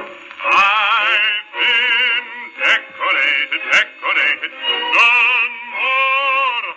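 Victor VV-VI Victrola playing a record through its rebuilt reproducer: a male singer with a wide vibrato, sung in phrases. The sound is thin and narrow, with no deep bass and little treble.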